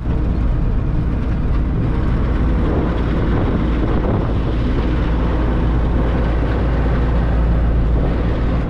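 Truck driving at speed, heard from inside the cab: a steady engine hum with road and wind noise.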